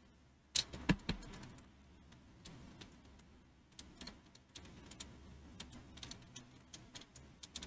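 Handling noise on a workbench: a couple of louder knocks about half a second to a second in, then scattered small clicks and ticks.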